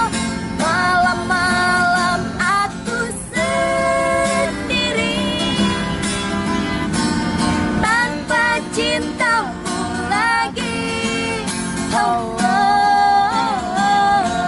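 A woman singing a slow Indonesian pop melody with sustained, gliding notes, accompanied by guitar.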